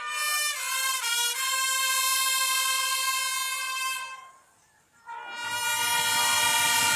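Brass marching band of trumpets and sousaphones playing long held chords. The first chord cuts off about four seconds in. After a pause of about a second, the band comes back in with another loud held chord that has a deep bass under it.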